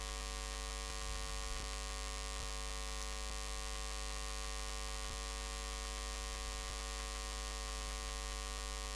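Steady electrical mains hum with a stack of even overtones over a faint hiss, picked up by the recording microphone, with a few faint ticks.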